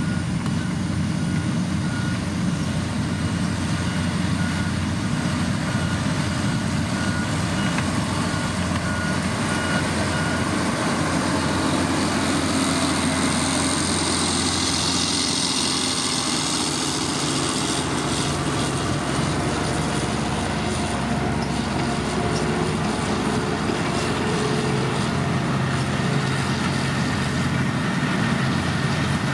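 Heavy diesel road-construction machinery running steadily, with a reversing alarm beeping in an even series for roughly the first third. A hissing noise swells and fades in the middle.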